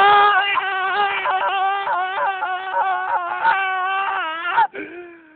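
A drunk person shouting one long, high, wavering yell without words, held for about four and a half seconds, then cutting off sharply near the end into a fainter trailing voice.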